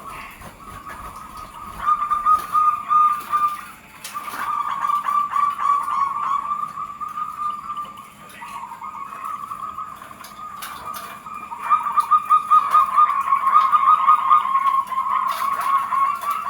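Zebra doves (perkutut) cooing in rapid, pulsed, rhythmic phrases, the calls going on almost without a break and growing louder about two seconds in and again near the end.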